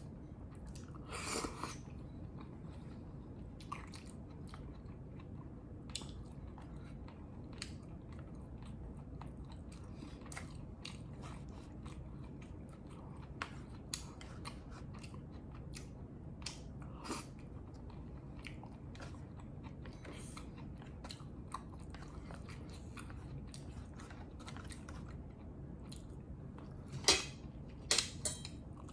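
A person chewing and eating close to the microphone, with many small wet clicks and smacks throughout. There is a louder burst about a second in and two sharp clicks near the end.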